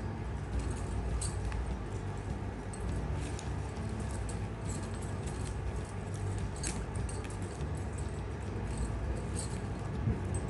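Strands of plastic basket-weaving wire rustling and ticking against each other as they are pulled through and knotted by hand, with many light scattered clicks.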